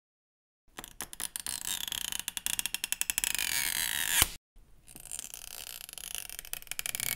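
Adhesive strip being stretched and pulled out from under an iPhone SE (2020) battery with tweezers: a rapid crackling of small clicks and creaks that grows denser, ending in a sharp snap about four seconds in. After a short gap a second strip starts crackling as it is pulled.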